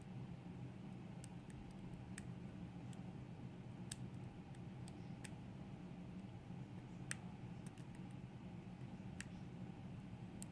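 Lock pick clicking faintly and irregularly against the sliders and pins inside a Millenco Magnum dimple euro cylinder, worked by a half-diamond pick under tension, over a steady low hum.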